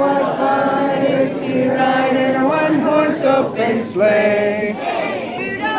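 A group of people singing together, many voices at once, continuing throughout.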